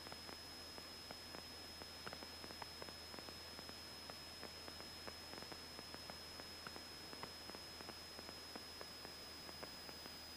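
Faint electronic hiss from the cockpit radio and intercom audio feed between transmissions, with a steady high-pitched whine and scattered faint crackling clicks over a faint low hum.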